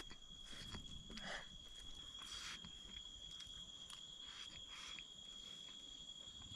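Faint, steady high-pitched chirring of crickets, with a few soft clicks and taps from eating.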